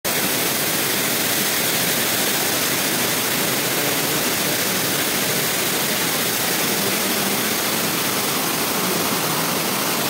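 Waterfall pouring onto rocks close by: a loud, steady rush of falling water.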